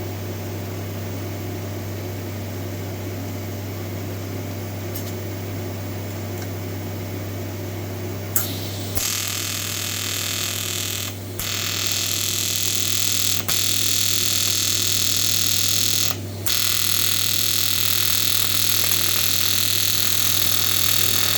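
A TIG welding machine hums steadily. About eight seconds in, a sharp click marks the arc starting, followed by the loud, steady hiss-buzz of the TIG arc, which drops out briefly twice before carrying on.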